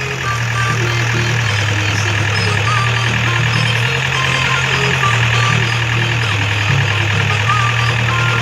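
Music played loud through a DJ sound system: a deep bass line stepping between notes about once a second under a steady noisy wash, with no singing.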